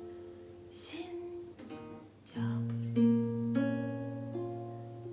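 Acoustic guitar playing slow chords that ring out, quiet at first, then louder from about halfway with a deep bass note under the chords.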